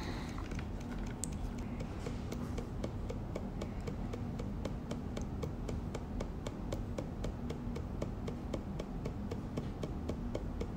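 YD Blink Pro X24 permanent-makeup pen running in its SPM1 scalp dotting mode: a steady low motor hum with regular clicks, about four a second, as the needle dots practice paper.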